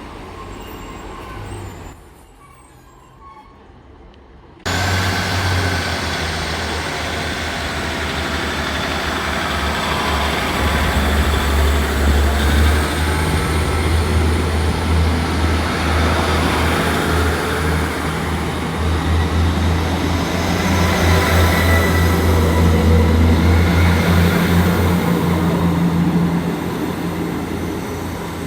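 Diesel multiple-unit train's underfloor engines running at the station, a steady low engine drone that starts abruptly about five seconds in, swells twice and eases off near the end. A faint high whine rises in pitch about halfway through.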